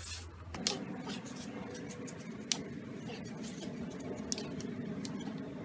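Sticks knocking together in a mock fight: a few sharp, separate clacks, about three over several seconds, over a low steady background.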